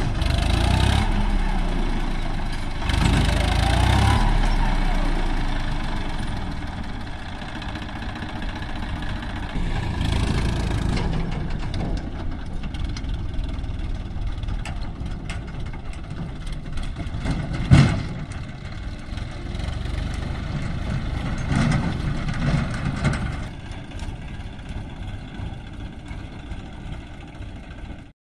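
Farm tractor's diesel engine running under load while pulling a loaded tipping trolley, the revs rising twice in the first few seconds, then running steadily and quieter toward the end. A single sharp knock about eighteen seconds in stands out as the loudest sound.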